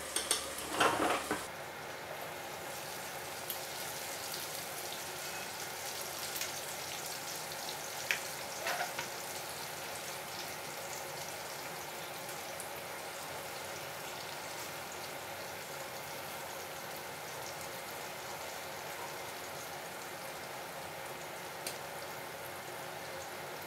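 Fish frying in shallow oil in a pan, a steady soft sizzle. There are a few louder knocks in the first second or so, and light clicks of metal tongs against the pan about eight seconds in.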